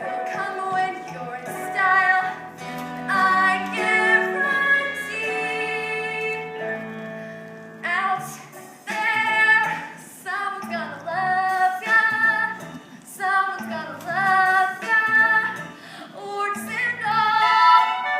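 A female voice singing a musical-theatre song over instrumental accompaniment, with sung phrases broken by short pauses.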